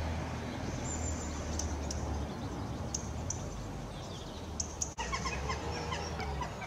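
Small birds chirping with short high calls, with a quicker run of chirps after about five seconds, over a steady low rumble.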